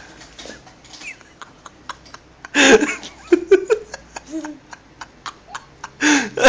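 Laughter in short loud bursts, about two and a half seconds in and again near the end, with a string of faint clicks between them.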